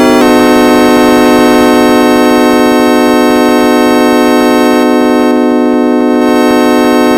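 Computer-synthesized tone generated from a Weierstrass function: one loud, organ-like note with many overtones, changing pitch just after the start and then held steady.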